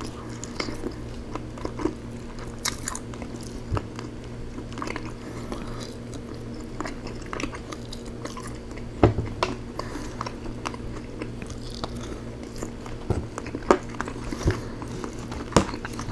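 Close-up chewing of rotisserie chicken, with scattered wet smacks and clicks, a few sharper ones about nine seconds in and again near the end. A steady low hum runs underneath.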